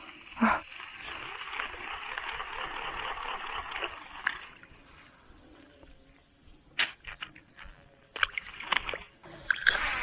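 Water splashing as a hooked snakehead thrashes at the surface: a sharp splash about half a second in, then about three seconds of steady splashing. Scattered short splashes and clicks follow near the end.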